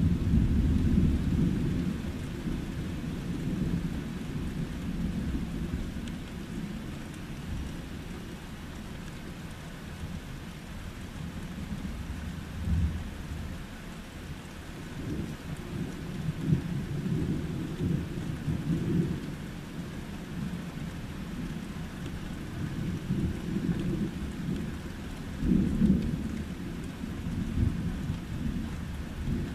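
Thunder rumbling in long rolls over steady rain. A rumble fades away at the start, fresh rolls swell about halfway through, and another peaks near the end.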